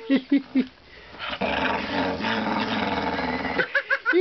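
Dog play-growling: a few short growls, then one long growl, then a few quick high yips near the end.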